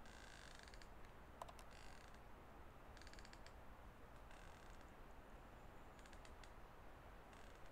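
Near silence: a faint hiss with soft, short raspy clicking sounds about every second or so.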